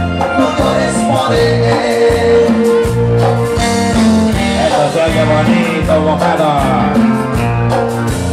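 Live band playing through a PA system: drum kit, bass guitar and electric guitar with a male voice singing over a steady beat.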